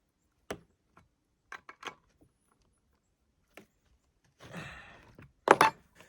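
Scattered light clicks and knocks of a tool working on the chainsaw as its bar is tightened back on after chain tensioning, with a short scrape about four and a half seconds in and a sharp knock just before the end, the loudest sound.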